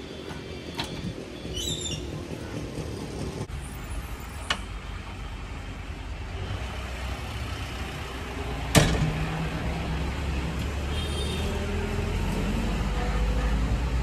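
JCB 3DX backhoe loader's diesel engine running with a steady low rumble that grows louder over the second half. A single sharp bang about nine seconds in is the loudest sound, with a few faint clicks before it.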